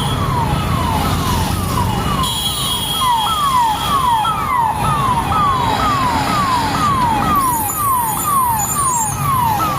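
Electronic vehicle siren, a rapidly repeating falling wail that sweeps down about two to three times a second, over the low rumble of vehicle engines.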